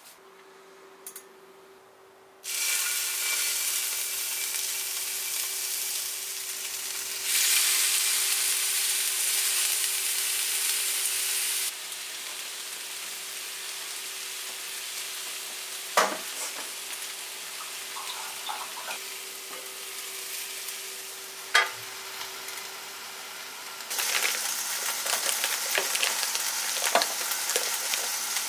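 Chicken and leek yakitori skewers sizzling on a hot plate. The sizzle starts suddenly a couple of seconds in and grows louder for a few seconds before settling, with two sharp clicks midway. Near the end a rougher crackle takes over.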